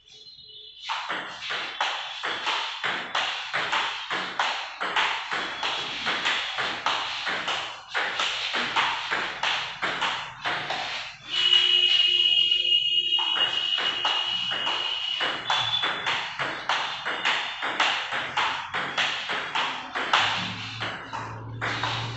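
Table tennis forehand rally: the ball clicks off the bats and the table in a quick, steady rhythm of about two to three hits a second. A steady high-pitched tone sounds over the rally for about four seconds near the middle.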